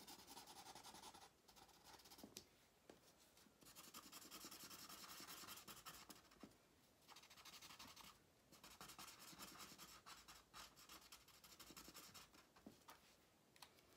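Faint scratching of a Sharpie permanent marker on paper coated with dried paint, colouring in a shape in uneven strokes with a few brief pauses.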